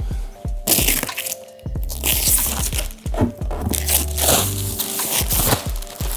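Packaging crinkling and crunching in several bursts as it is unwrapped and pulled about, over background music with a steady low bass.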